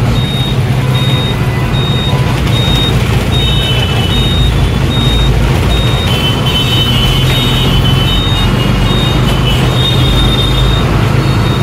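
A Tata 1512c bus's diesel engine running under way, heard from inside the driver's cab as a steady low drone. A short high electronic beep repeats a little faster than once a second.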